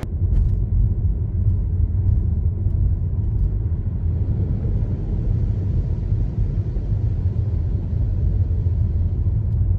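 Car driving slowly along a flooded road: a loud, steady low rumble with little high sound.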